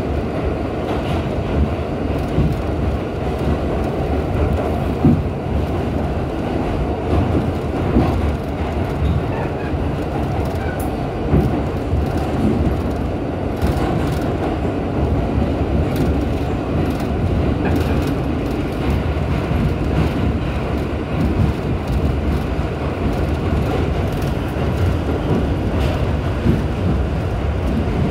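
New York City subway D train running through the underground Concourse line tunnel, heard from inside the car: a steady rumble with scattered clicks and knocks from the wheels on the rails.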